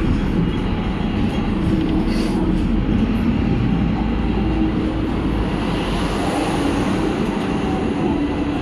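Hong Kong double-decker tram running along its rails, heard from on board: a steady rumble of the steel wheels with a low, even hum.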